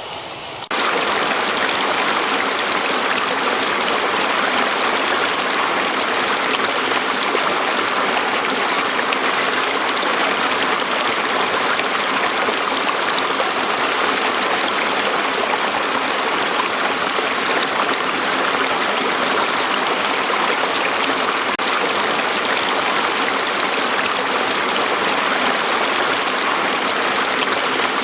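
Steady rushing of flowing water, a stream or waterfall, that jumps suddenly louder about a second in and then holds even.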